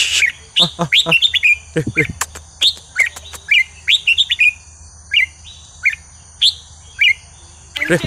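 Red-whiskered bulbul singing: a run of short, quick chirping whistles, busiest in the first half and sparser towards the end.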